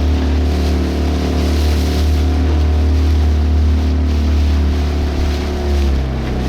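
Boat engine running with a steady low drone, its pitch changing about six seconds in.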